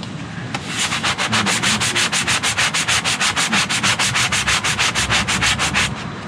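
Sandpaper on a hand sanding block scrubbed quickly back and forth over an aluminum boat hull, in fast even strokes, several a second, to take off the old paint and prepare the bare metal for priming. It starts about half a second in and stops shortly before the end.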